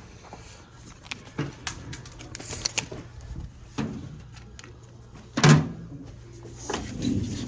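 Scattered knocks and clatter from things being handled and set down, with one louder thump about five and a half seconds in.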